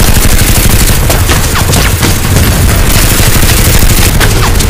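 Sustained rapid automatic gunfire, dense and continuous, laid in as sound effects over a Nerf battle. A few short falling whistles cut through it, about two seconds in and again near the end.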